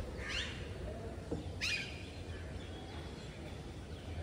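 Two short crow caws about a second and a half apart, over a steady low background hum.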